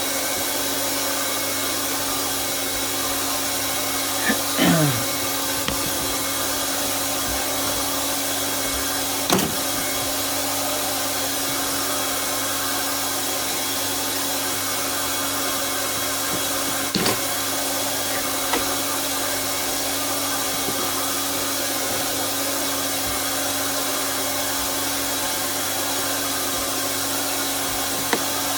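Hot-air plastic welding gun blowing steadily while a plastic seam is welded, with a steady hum and a few brief knocks and taps.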